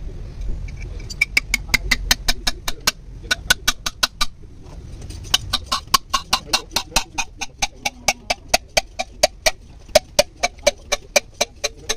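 Rapid hammer taps on a cylinder liner in an Isuzu 4JB1 diesel block, about five a second, with a short pause about four seconds in. Each tap rings, and the ring drops in pitch over the run.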